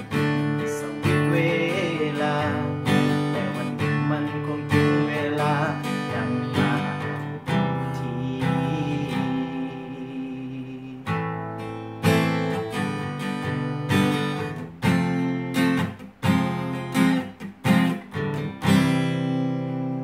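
Acoustic guitar playing strummed chords as the song's closing instrumental. The strums break into a few separate, spaced strokes near the end, and a final chord is left ringing.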